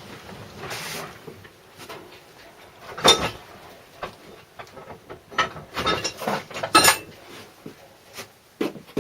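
Metal clinks and knocks of tools and engine parts being handled on a workbench, a sharp clank about three seconds in and a quick run of clatters near the end.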